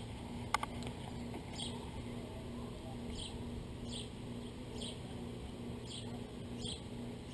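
Short high chirp calls from a small animal, repeating roughly once a second, over a faint steady low hum. A single sharp click comes about half a second in.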